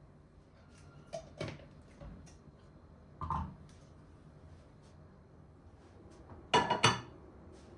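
Kitchen dishes and utensils being handled: a few light knocks and clinks, then a louder quick run of clinks near the end.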